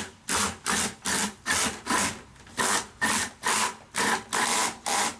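Cordless power drill boring a hole into a plastic bucket, the bit grinding through the plastic in even, rapid scraping pulses, about three a second.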